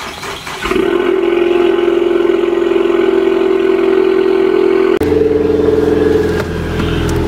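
A Ford Mustang's engine starts up about a second in and then runs steadily. Its pitch and rumble shift about five seconds in.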